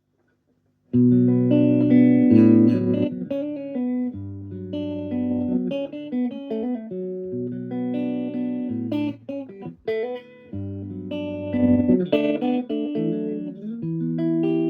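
1960 Fender Jazzmaster electric guitar played clean through a 1959 Fender Champ amp, with the pickup selector in the middle position. A series of strummed, ringing chords starts about a second in. There is slight fret buzz from the guitar's low frets and nut.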